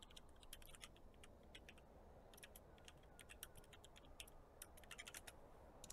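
Faint computer keyboard typing: scattered single keystroke clicks, coming faster through the middle and later part.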